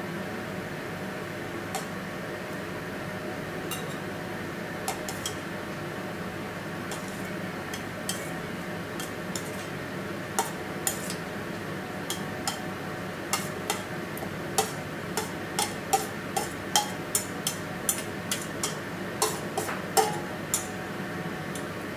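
Metal utensil clinking and tapping against a stainless steel bowl as dressed salad is lifted out and plated: a few scattered clicks at first, then a quick run of sharp clinks about halfway through. A steady hum, like a kitchen fan, runs underneath.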